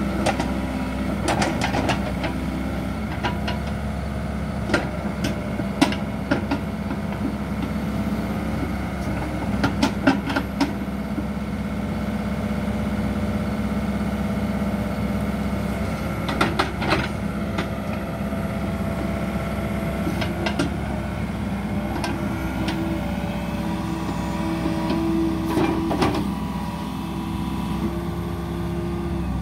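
John Deere 85D midi excavator's diesel engine running steadily while the boom, arm and bucket are worked, with scattered sharp clanks from the moving attachment. A higher hydraulic tone strengthens in the last few seconds as the arm is stretched out.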